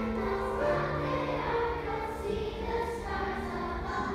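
Children's primary choir singing, holding long notes.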